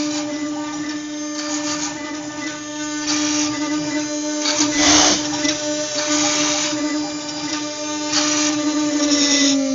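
Mini 6090 CNC router cutting wood: a steady high whine from the spindle, broken every second or two by short rasping bursts as the bit bites into the wood, the loudest about halfway through.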